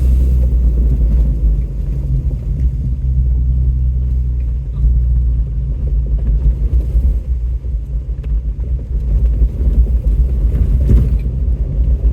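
Off-road truck's engine running steadily at low revs while it crawls along a rough dirt trail, a low rumble, with a few knocks near the end.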